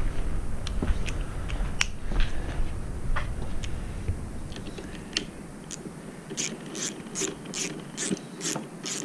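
Hand-tool work on a motorcycle: scattered clicks and knocks, then from about six seconds in a run of some eight evenly spaced ratcheting strokes.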